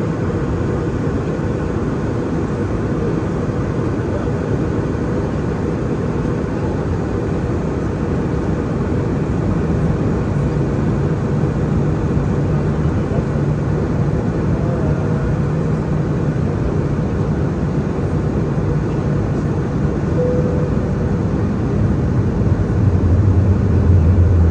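Steady rumble of an Airbus A320-200 airliner in flight, heard inside the cabin: engine and airflow noise, with a low hum that grows louder toward the end.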